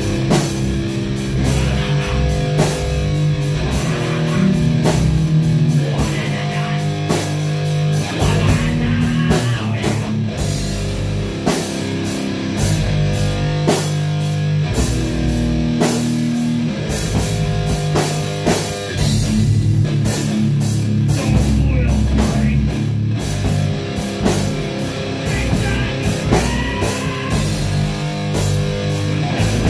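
Rock band practising: electric guitar and a drum kit playing a heavy rock song together, with sustained guitar notes and steady drum and cymbal strokes.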